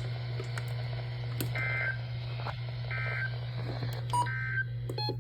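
Three short bursts of warbling Emergency Alert System data tones, about a second apart: the end-of-message code that closes an EAS broadcast. A steady low hum lies under them.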